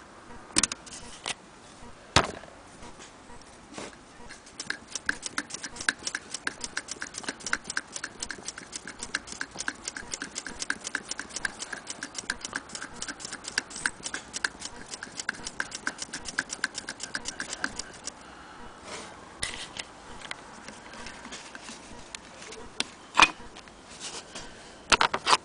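Willcox & Gibbs single-thread chain-stitch sewing machine stitching through cloth: an even run of clicks, about five a second, from about five seconds in until about eighteen. A few separate knocks come before and after it.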